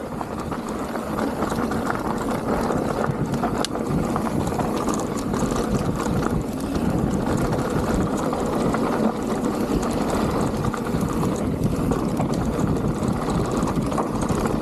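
Mountain bike rolling fast down a dirt trail: a steady rumble of tyres and wind on the action-camera microphone, with small rattles from bumps.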